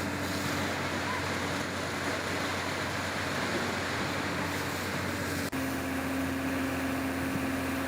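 Steady engine-like hum over an even rushing noise, broken by a brief dip about five and a half seconds in, after which the hum carries on at a slightly different pitch.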